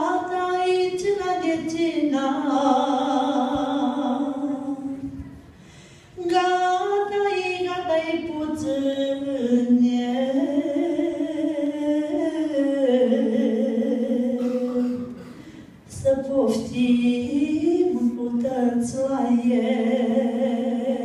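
A woman singing a Romanian folk song unaccompanied into a microphone, in long held, sliding notes, with short breaks for breath about five and fifteen seconds in.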